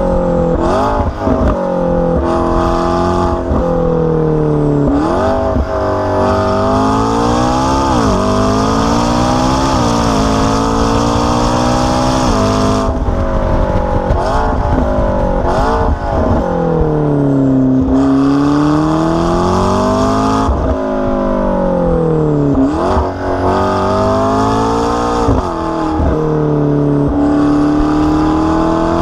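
McLaren 650S twin-turbo V8 with an aftermarket AWE exhaust, under hard driving: the engine note climbs and falls again and again as the car accelerates and slows, with short breaks at the gear changes.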